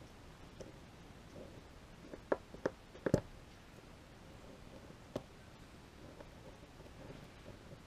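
Small metal clicks from a retaining clip being worked by hand into the body of an LS hydraulic roller lifter. There are a few sharp clicks between two and three seconds in, the loudest bunched together near the end of that stretch, and one more a couple of seconds later.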